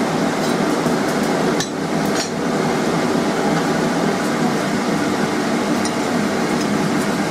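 A few light metal clinks as a forged steel strip is handled and fitted against an anvil, over a steady, even noise.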